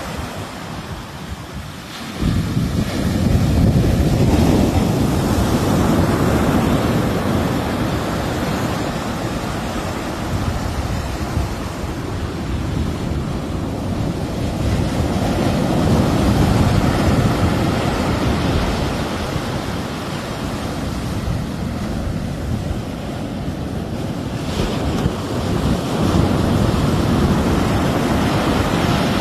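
Sea waves washing onto the shore in slow, rising and falling surges, with wind rumbling on the microphone. The sound grows louder about two seconds in.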